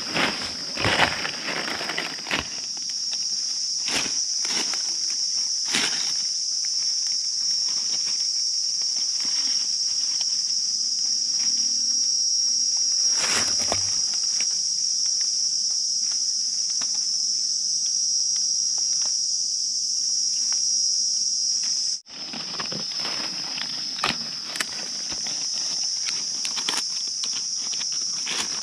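Steady high-pitched drone of forest insects, with irregular crackles and rustles of footsteps and handling in dry leaf litter, busiest in the first few seconds.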